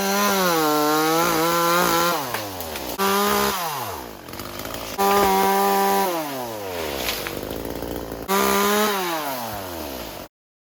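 Two-stroke chainsaw run in four throttle bursts, each held for a second or two before its pitch sinks away, as it cuts blue gum trees. The sound cuts off suddenly near the end.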